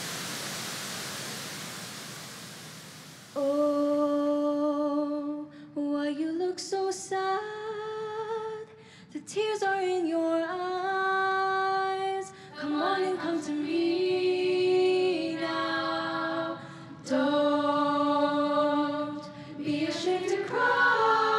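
A girl sings a slow melody into a microphone, holding long notes, with choir voices behind her. The singing comes in about three seconds in, after a hiss that fades away.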